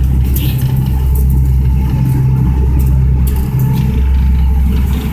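Steady low drone of a boat's engine under way, heard from on deck, with a few brief gusts of wind noise on the microphone.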